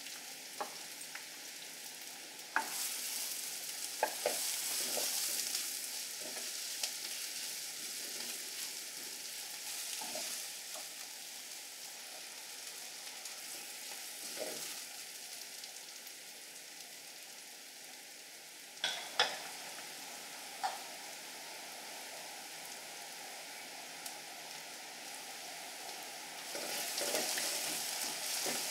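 Chopped onions sizzling in hot oil in a clay pot, stirred with a wooden spatula that now and then knocks sharply against the pot. The sizzle grows louder near the end.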